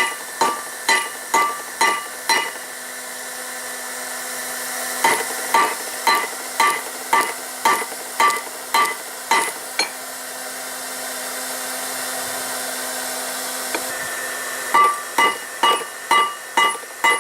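Hammer striking hot steel on an anvil in three runs of ringing blows, about two a second, with pauses of a few seconds between runs, over a steady hum. It is a file being forged into a froe.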